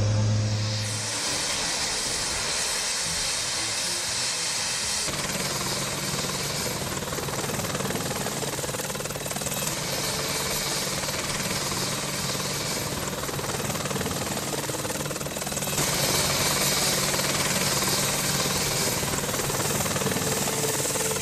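AH-64 Apache attack helicopter running with its rotor turning: a steady wash of rotor and twin-turboshaft engine noise. A low steady hum comes in about five seconds in, and the sound shifts abruptly in level near one second and again near sixteen seconds.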